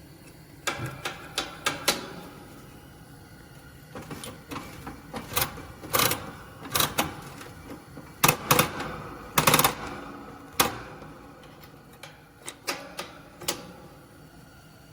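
An irregular series of sharp clicks and knocks, some coming in quick clusters of two or three, spread through the stretch with a quieter gap in the middle of the later part.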